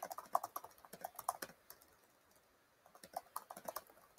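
Typing on a computer keyboard: two quick runs of key clicks with a pause of about a second between them.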